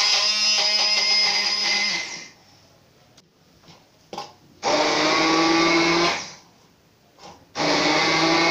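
Electric hand (stick) blender running in three bursts in a tall beaker, puréeing coriander, tomato, onion, soaked kataray and chillies into a green chutney: it stops about two seconds in, runs again for about a second and a half in the middle, and starts again near the end. Faint knocks in the pauses between bursts.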